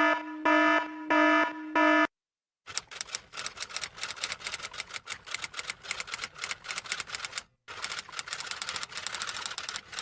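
Sound effect clips: four short, loud buzzer beeps in a row, then after a brief silence a fast, continuous clatter of typing keys that pauses once briefly about three-quarters of the way through.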